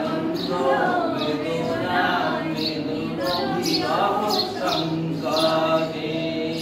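Unaccompanied group singing: a man's voice with a class of girls singing along in chorus.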